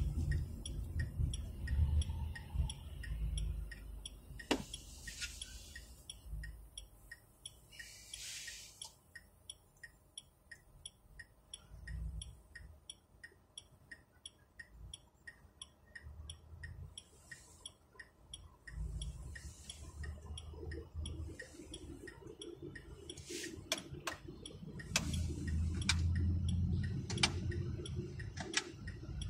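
The indicator of a Smart ForTwo 453 ticking steadily in the car's cabin, about two or three ticks a second. Under it is a low rumble of engine and road that swells at the start and again near the end.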